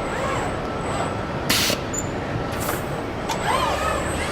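Car assembly-line machinery running: a whine that rises and falls in pitch, as of a motor speeding up and slowing down, over a steady mechanical din, with a short loud burst of air hiss about a second and a half in.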